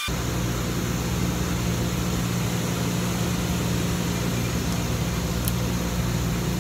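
Steady mechanical hum of running rooftop air-conditioning equipment, with one faint light click late on.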